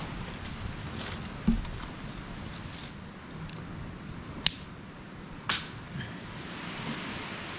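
Dry palm fronds and twigs rustling and snapping as a small kindling fire is laid and lit, with a few sharp cracks, the loudest about four and a half seconds in.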